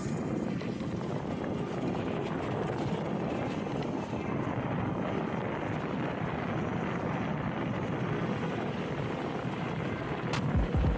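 Wind rushing over the camera microphone and tyre noise as a Nami electric scooter pulls away and rides at about 25 mph: a steady, dense rush that starts abruptly, with a sharp click near the end.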